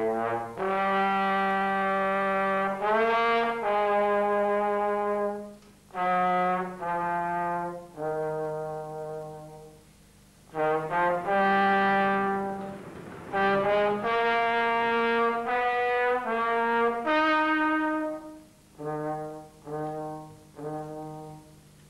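Solo trombone playing a slow theme tune in phrases of held notes, with a few notes sliding up into the next. It ends on three short, separate notes.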